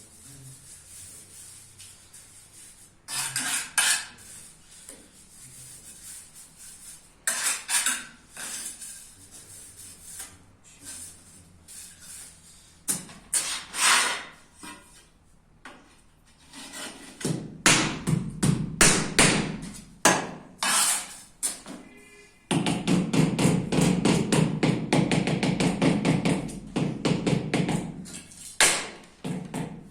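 Ceramic floor tiles being tapped down into their mortar bed with a mallet: short bursts of knocks at first, then a long run of rapid, even taps through the second half.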